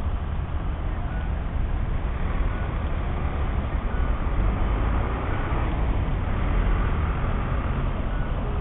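Steady rumble of road traffic, heaviest in the low end, with no single event standing out.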